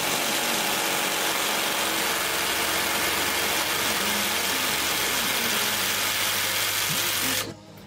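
Milwaukee M12 Fuel right-angle impact wrench hammering steadily on its second speed against a seized bolt, then cutting off suddenly near the end. The bolt does not break loose.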